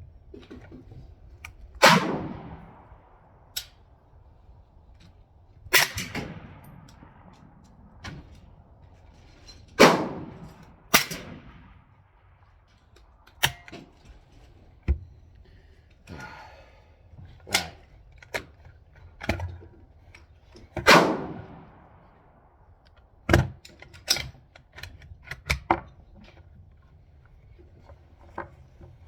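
Rifle gunshots, about half a dozen loud shots spaced irregularly a few seconds apart, each with a trailing echo, among quieter clicks and clanks.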